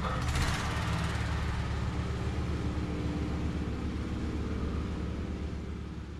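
Toro lawn mower engine running steadily, with a brief rushing noise about half a second in. The sound begins to fade near the end.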